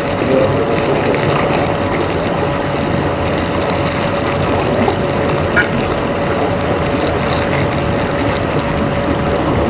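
A plastic bag crinkling as bait paste is squeezed and worked inside it, over a steady mechanical drone with a constant hum.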